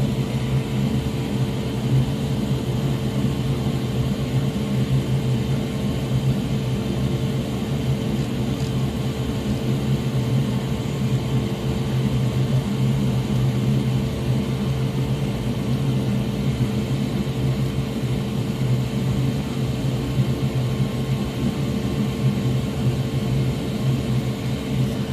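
Steady mechanical hum of a fan or blower: an even low drone with a fainter steady tone above it, unchanging throughout.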